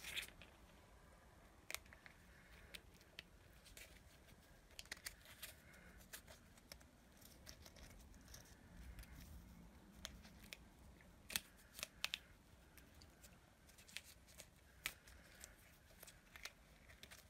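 Red insulation tape being wrapped into a tube with the sticky side out: faint, scattered crackles and clicks as the tape sticks to itself and peels off the fingers, with a few sharper clicks a little past halfway.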